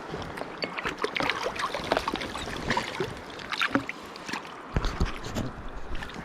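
Irregular splashing and slaps of water over the steady rush of a mountain stream, as a hooked rainbow trout thrashes at the surface while being played in.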